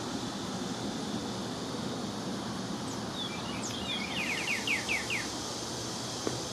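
A small songbird sings a short phrase about three seconds in: a few high chips, then a quick run of about seven downward-slurred notes, over a steady background hiss. A single faint click comes near the end.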